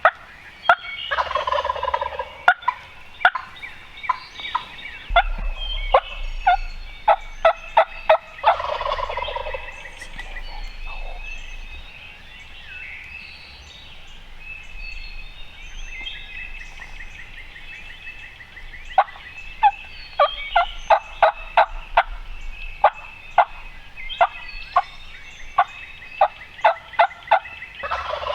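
Wild turkey gobblers gobbling three times, about a second in, near the middle and at the end, each a loud rattling roll a second or so long. Between the gobbles come runs of sharp clicking notes, with smaller birds singing higher up.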